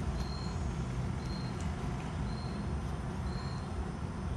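Steady low rumble with a faint, short high-pitched chirp repeating about once a second.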